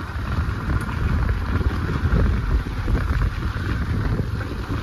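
Wind rushing over the microphone on a moving motorbike, with the bike's engine running underneath as a steady low rumble.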